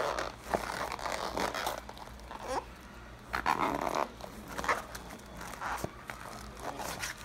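Crackly rustling, scraping and tearing of card-box packaging, handled by hand in irregular bursts as it is wrestled open.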